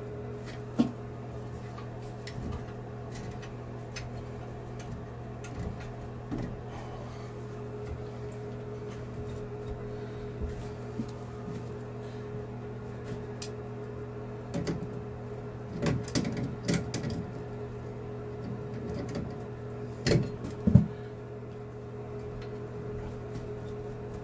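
Old chrome sink drain pipe and its slip nuts being worked loose by hand and with tongue-and-groove pliers: scattered metal clinks, scrapes and knocks, with clusters of louder knocks past the middle and again about twenty seconds in, over a steady low hum.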